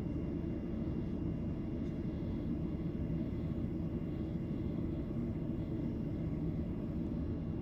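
Steady low rumble of a Boeing 737-800 airliner's engines and airflow, heard from inside the cabin.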